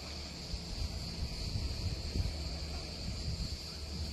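Insects chirring in a steady, high-pitched drone, over a low rumble with irregular soft bumps, typical of wind or handling noise on the microphone.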